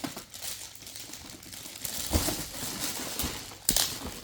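Plastic toy pieces and packaging being handled: rustling and crinkling with scattered light clicks, and a louder tap about two seconds in and again near the end.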